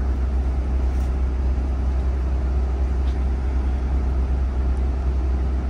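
Steady low rumble of a coach bus heard from inside its passenger cabin.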